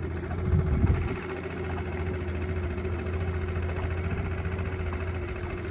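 Small boat's motor running steadily, a low hum with a constant mid-pitched tone over it.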